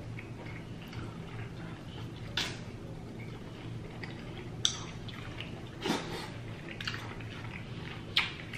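Wet eating sounds from a seafood boil: about five short, sharp smacks and clicks of chewing and of fingers handling sauce-soaked prawns, over a low steady hum.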